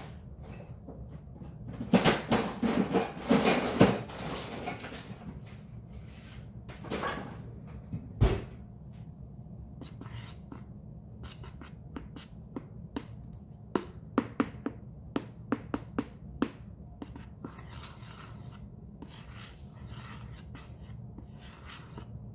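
Kitchen handling noises: a burst of clattering and knocking, a single heavier knock, then a run of light sharp clicks as a wooden stick is worked through cake batter in a metal springform pan.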